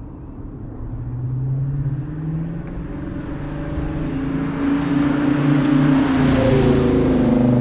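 Dodge Challenger R/T's Hemi V8 running as the car drives up and past, its engine note growing steadily louder and peaking with tyre noise about six to seven seconds in.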